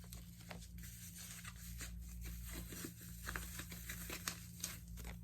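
Faint crinkling and tearing of packaging being handled and opened by hand, a scatter of small irregular crackles and clicks, over a steady low hum.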